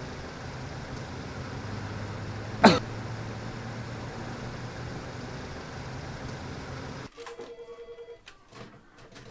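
Steady low hum of an idling car engine, with one loud, sharp sob from a distraught man about three seconds in, falling in pitch. About seven seconds in the hum stops abruptly and a short electronic ringing tone follows.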